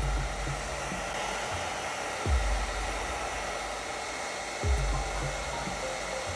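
Household hair dryer blowing steadily, warming a smartphone's display before it is pried open. A low rumble swells about every two and a half seconds.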